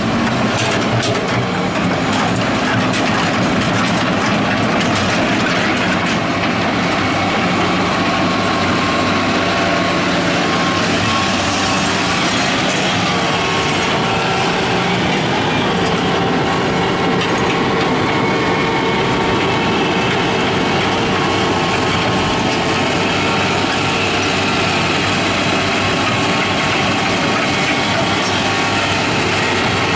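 Hitachi crawler excavator working, its diesel engine running steadily under load with a steady whine over it as it digs and lifts soil with the bucket.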